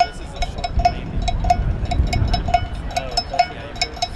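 Light metallic clinks, irregular, several a second, each with a short ring, over a low rumble.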